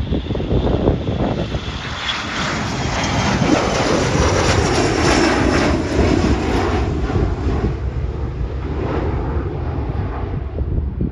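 Aircraft engines passing low overhead: a rush of engine noise with a high whine that swells to its loudest about five seconds in, then fades away.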